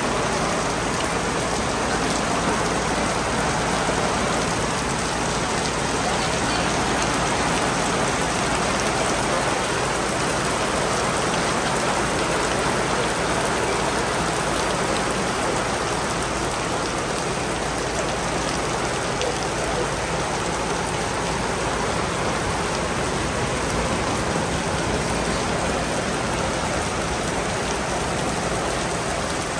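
Shower rain falling steadily on the ground: a dense, even hiss of drops.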